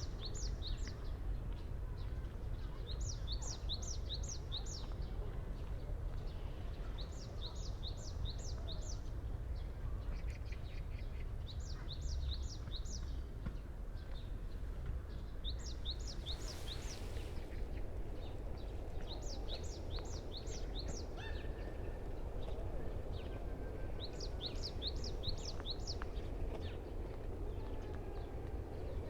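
A songbird singing the same short phrase over and over, a quick run of five or six high notes repeated about every four seconds, over a steady low rumble of background noise.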